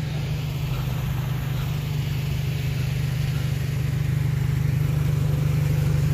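Pickup truck engine idling: a steady low hum that grows slightly louder near the end.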